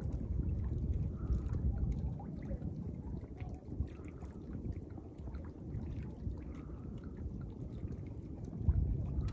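Strong wind buffeting the microphone as a constant uneven low rumble, with small waves lapping and trickling against the side of the boat.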